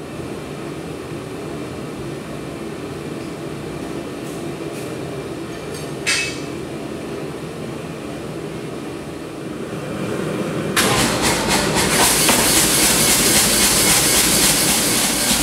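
Two-burner propane gas forge running with a steady rushing hiss, heard at a distance at first with a single metallic clank about six seconds in. About eleven seconds in it becomes much louder and closer.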